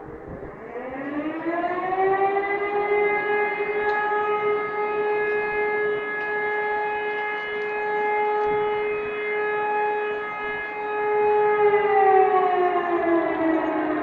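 Civil-defence warning siren sounding for its monthly test. It winds up over about two seconds to a steady wailing tone, holds it, and begins to wind down about twelve seconds in.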